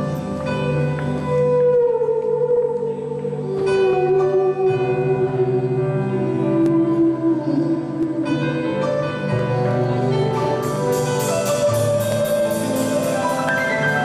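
Live band music: a held, gliding lead melody over piano and guitar chords, with a steady hand-drum and cymbal beat coming in about ten seconds in, about three to four strokes a second.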